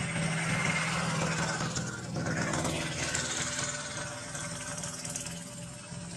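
An engine running steadily, a low hum under outdoor background noise.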